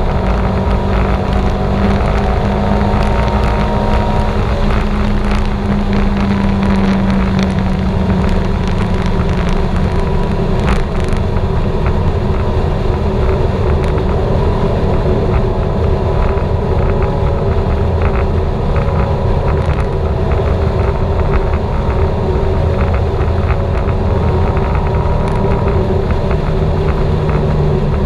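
Turbocharged Subaru Forester XT's flat-four engine running hard on track. Its pitch glides up and down over the first several seconds, then holds steadier.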